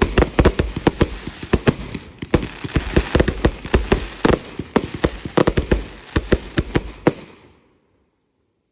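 Consumer fireworks going off in a rapid, dense barrage of bangs, several a second over continuous crackling. The barrage stops about seven seconds in and dies away to silence.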